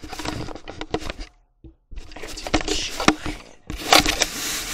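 Handling noise from a handheld camera being moved close against clothing: rustling and rubbing with irregular clicks and knocks, coming in bursts, the loudest near the end.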